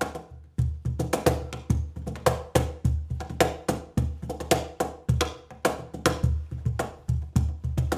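Schlagwerk 2-in-1 Deluxe cajon played with bare hands in a quick groove, several strokes a second: deep bass thumps mixed with sharp, snare-like slaps, heard through close mics blended with the room mic.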